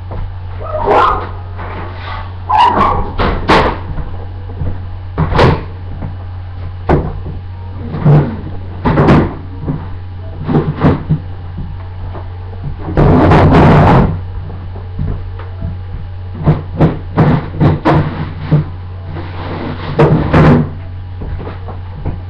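Kitchen clatter: a string of sharp knocks and bangs from cupboard doors and things being handled, with a dense rustle lasting about a second midway, over a steady low hum.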